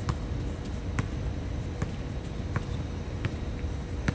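A basketball being dribbled on an outdoor hard court: six sharp bounces, about one every 0.8 seconds, the last one the loudest. A steady low rumble runs underneath.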